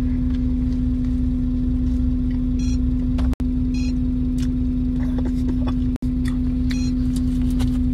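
Steady hum of a vehicle idling, heard inside the cab: one constant drone over a low rumble. It cuts out briefly twice.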